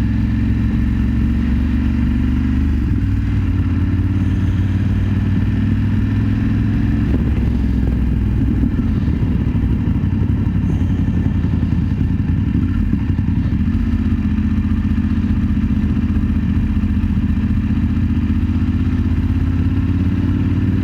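BMW F 850 GS parallel-twin engine running at a steady cruise under the rider, its note holding nearly constant with small dips and rises in pitch.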